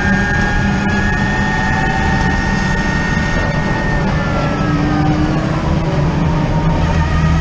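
Onboard sound of a hydrogen fuel-cell electric race car at speed: a loud rumble of road and wind noise with a high whine from the electric powertrain. The whine holds steady, then falls in pitch from about four seconds in as the car brakes for a corner.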